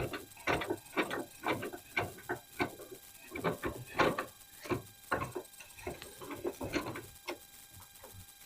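An irregular run of light clicks and knocks, about two or three a second, from AR-15 parts and tools being handled on a workbench, thinning out about seven seconds in.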